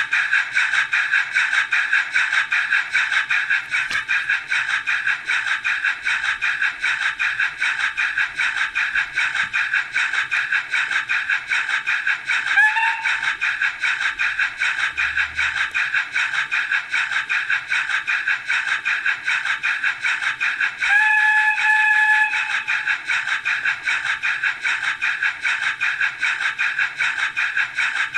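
Bachmann H2 Atlantic model locomotive's factory-fitted DCC sound decoder playing steady, evenly pulsing steam exhaust chuffs through its small onboard speaker, thin and without bass. A brief whistle sounds about halfway through, and a longer whistle of a little over a second comes about three-quarters of the way through.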